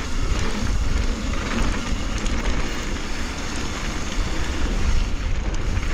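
Mountain bike tyres rolling over loose dirt, with wind rushing over the microphone as the bike rides a jump line. The rumble stays steady and heavy in the low end, with a few small clicks.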